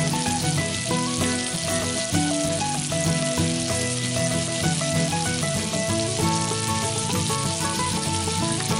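Sausage patties sizzling steadily in hot fat in a cast iron skillet, under background music.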